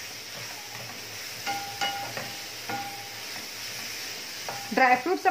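Wooden spatula stirring and scraping a moist grated-coconut and jaggery filling in a nonstick frying pan, with a faint steady sizzle. A few soft notes of background music sound around the middle.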